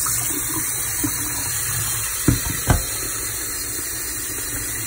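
Kitchen tap running into a stainless steel sink as a dog's water bowl is rinsed out and filled under the stream, with two sharp knocks a little over two seconds in.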